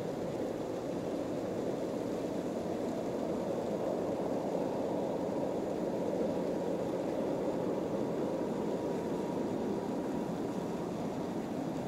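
Jet engine noise of a twin-engine Boeing 767-300ER airliner on final approach: a steady low rushing that swells slightly toward the middle.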